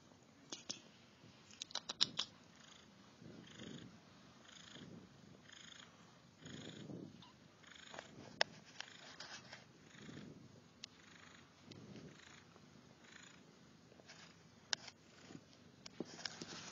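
Persian cat purring, swelling and fading in slow, even cycles about once a second, with a few sharp clicks and taps, the loudest about two seconds in.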